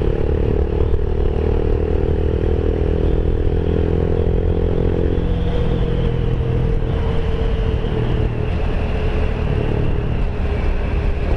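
Rusi Sigma 250 motorcycle engine running steadily at road speed, with heavy wind rumble on the microphone. The engine note drops slightly about five seconds in.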